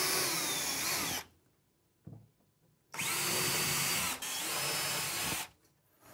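Cordless drill drilling holes through the back panel into the back rail of a chipboard kitchen base unit. A short run in the first second, then a longer run starting about three seconds in with a brief break, the motor's pitch rising and sagging as the trigger is squeezed and the bit cuts.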